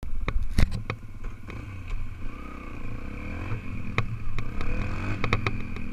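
Dirt bike engine running and revving up and down as it rides, heard up close from a bike-mounted camera. Sharp clicks and knocks sound repeatedly over it, the loudest less than a second in.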